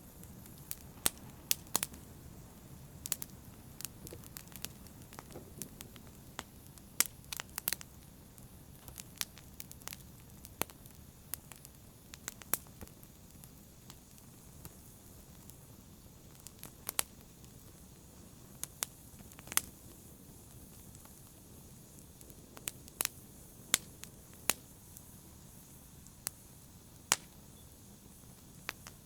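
Wood fire crackling: irregular sharp snaps and pops over a steady low rumble of burning.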